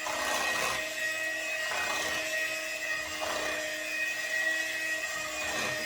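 A small electric appliance motor running with a steady hum, with a few brief scraping or rustling noises over it.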